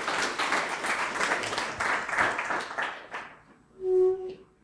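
Audience applauding, dying away after about three seconds; then a single loud held note of music near the end.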